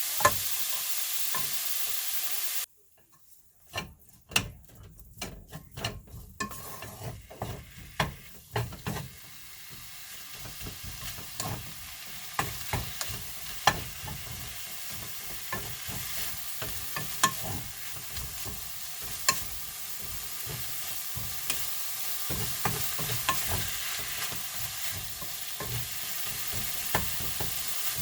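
Food sizzling in a pan, with a utensil clicking against it. The sizzle cuts off abruptly a few seconds in, then builds back up gradually while sharp clicks and taps continue.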